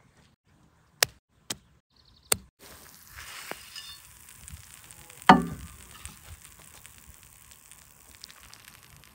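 Hot food sizzling, as on a griddle, starting about two and a half seconds in after three sharp clicks, with one loud sharp clack about five seconds in.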